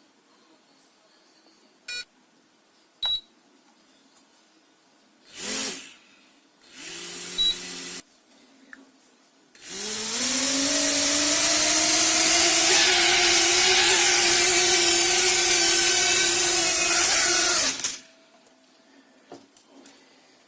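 Small drone's electric motors spinning up to speed and running steadily for about eight seconds, a loud whine over a broad propeller noise, then cutting off: a test run after the motor replacement. Before it come a couple of clicks, some handling noise and a short beep.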